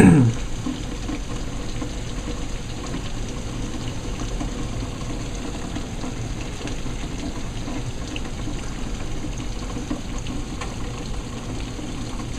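Heavy rain pouring down steadily in a thunderstorm downpour, as the hail dies away.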